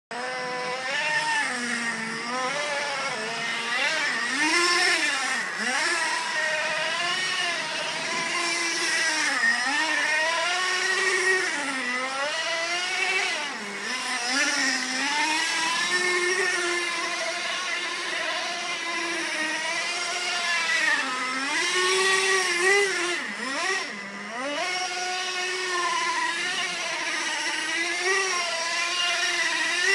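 Radio-controlled truck's motor revving up and down over and over as it slides and spins on snow, a buzzing note whose pitch keeps rising and falling with the throttle.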